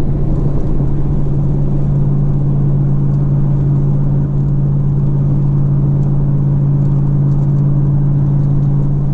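Steady drone of a vehicle cruising at highway speed, heard inside the cabin: tyre and engine noise over a constant low hum.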